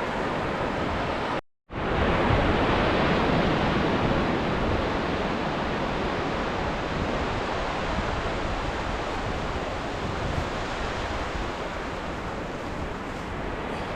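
Ocean surf: a steady wash of waves on the shore. About a second and a half in the sound cuts out completely for a moment, then a wave's wash swells louder and settles back to a steady rush.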